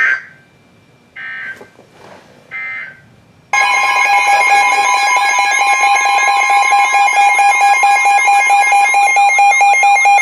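Emergency Alert System broadcast on a weather radio: three short bursts of screeching digital data about a second apart, then a loud steady alert tone that starts about three and a half seconds in, with a warbling siren-like tone over it. This is the signal that opens a new warning.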